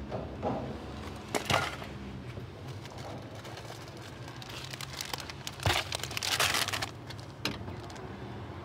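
Plastic grocery bags rustling and crinkling as they are handled, in several short bursts.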